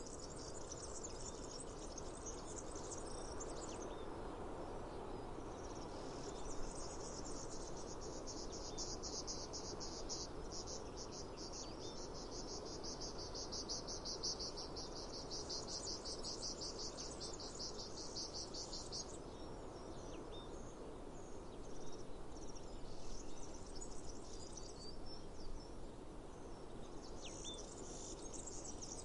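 Cicadas singing: a fast, finely pulsed high buzz, brief at first, then one long stretch from about six seconds in to about nineteen, over a steady low outdoor hiss, with a few short high chirps near the end.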